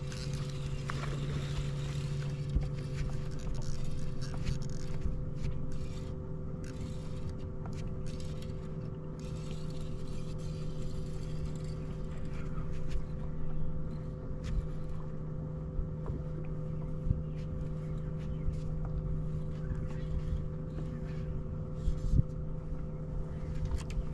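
Steady electric hum of a bow-mounted trolling motor, holding one even pitch, with scattered light clicks and knocks.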